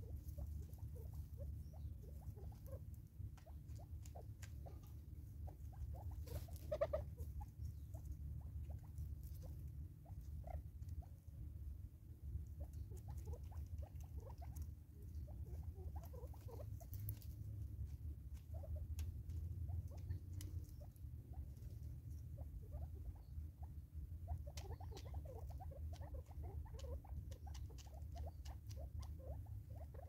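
Natal spurfowl feeding at a seed feeder: scattered small taps and clicks as they peck, over a low steady rumble.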